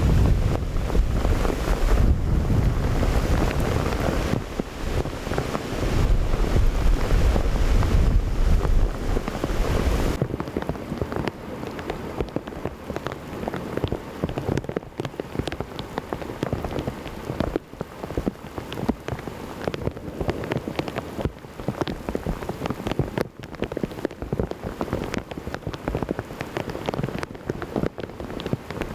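Heavy rain pouring in a severe storm. For about the first ten seconds a loud low rumble sits under the downpour and then stops abruptly, leaving rain pattering with many sharp, close drop impacts.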